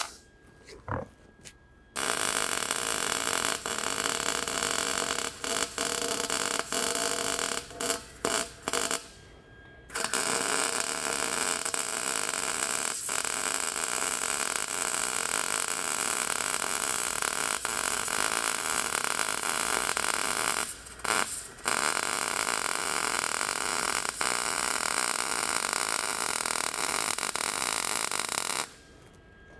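MIG welding arc on mild steel, fed with 0.031-inch ER70S-6 solid wire, crackling and hissing steadily in several runs of bead. It starts about two seconds in, breaks off a few times near a third of the way through and again past two-thirds, and stops just before the end.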